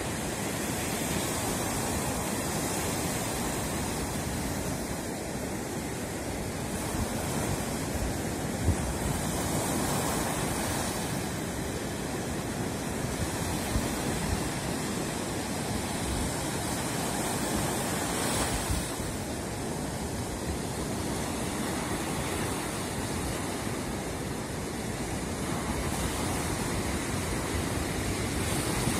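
Baltic Sea surf breaking and washing up a sandy beach: a steady rush of water that swells a little every several seconds as each wave comes in.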